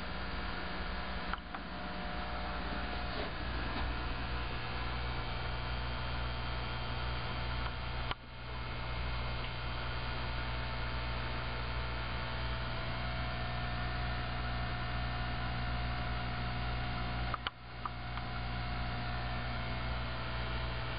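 Steady electrical mains hum, a low buzz with faint hiss, dropping out briefly twice, about eight seconds in and again a few seconds before the end.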